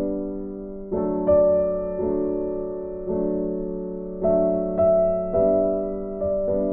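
Background music: slow, gentle electric piano chords, a new chord struck about once a second and left to fade.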